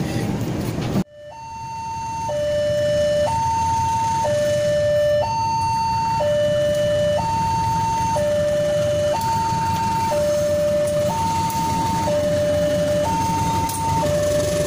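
Railway level-crossing warning alarm sounding a steady high-low two-tone, each tone held about a second, starting about a second in. Under it runs the low rumble of a passing diesel train hauled by a CC201 locomotive.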